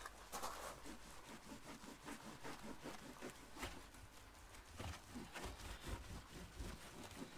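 Faint rhythmic scrubbing: a soapy sponge rubbed quickly back and forth over a motorhome's side hatch door, several strokes a second.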